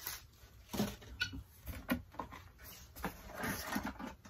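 Packaging being handled while items are taken out of a box: scattered light knocks and clicks with some rustling, loudest around the middle and from about three seconds in.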